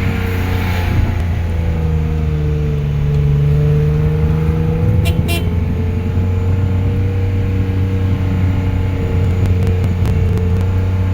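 A vehicle engine running with a steady low drone that rises and falls slightly in pitch. A couple of short clicks come about five seconds in.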